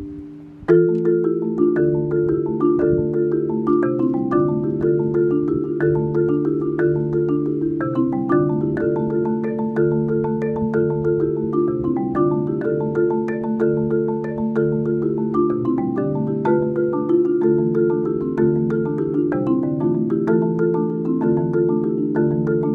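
Solo marimba played with four yarn mallets. Earlier notes ring away into a brief pause, then a fast, steady stream of notes comes in suddenly under a second in and keeps going in repeating patterns.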